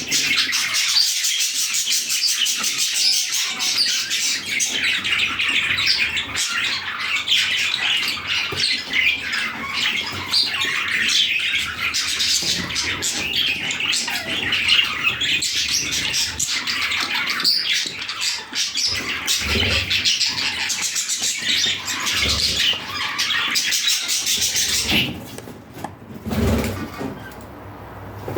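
A group of budgerigars chattering and chirping continuously in a dense, high twitter. About 25 seconds in, the chatter stops abruptly, leaving a quieter stretch with a couple of low thumps.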